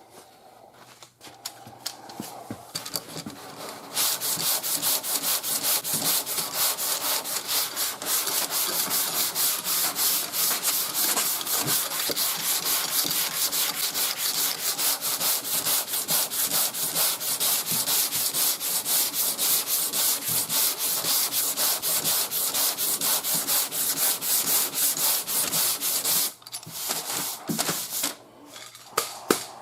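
Sandpaper on a hand sanding block rubbing back and forth over primer surfacer on a car body panel, in quick, even strokes. It is block sanding to level the primer over low spots. The strokes start light, become steady and louder about four seconds in, and ease off near the end.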